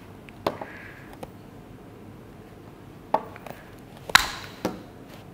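ClicBot's hard plastic robot modules clicking and knocking against each other as they are handled and fitted together: a handful of separate sharp clicks, the loudest about four seconds in.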